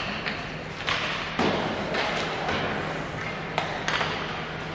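Ice hockey play in an arena: about eight irregular sharp knocks of sticks and puck, some against the boards, echoing over a steady low hum and crowd murmur.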